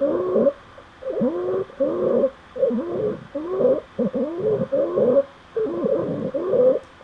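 Stridor: noisy, pitched breathing through a narrowed airway, in short bursts about one or two a second, each wavering and bending in pitch, with brief pauses between them. It is the sign of airway obstruction, which may be due to a tumour or a foreign object.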